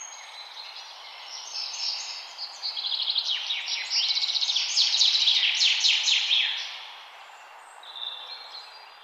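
Songbirds chirping and singing, with a loud run of rapid trills in the middle, over a steady background hiss; the birdsong thins out toward the end.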